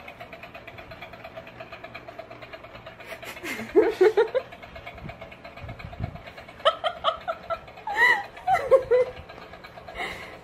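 A small motor in a toy hand buzzing steadily with a fast pulsing rattle. A person laughs in short bursts about four seconds in and again twice near the end.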